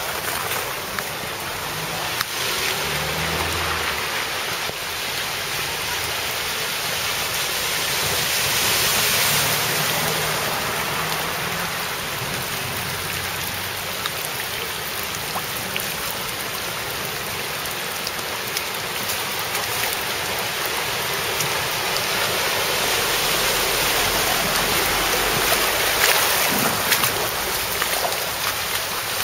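Floodwater running across a street in a steady rushing flow, swelling a little twice.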